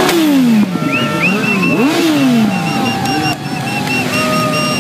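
Several motorcycle engines revving together, their pitches climbing and dropping in overlapping waves, with a sharp crack right at the start.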